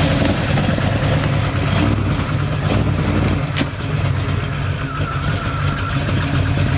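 Rock crawler buggy's engine running steadily under load as it crawls up over boulders, with one sharp click about halfway through.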